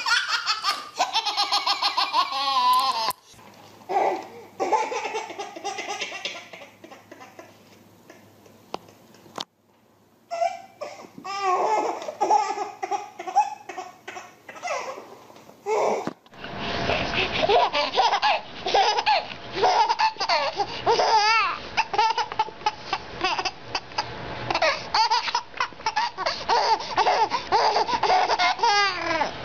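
Babies laughing hysterically, high-pitched belly laughs and giggles, switching abruptly a few times from one baby to another. The laughter is quieter through the middle and loud again for the last part.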